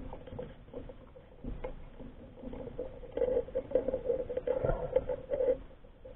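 Muffled underwater sound of a crab's claws and legs clicking and scraping on a speargun, with a steady hum under it. The clicks are irregular and grow busier and louder in the middle.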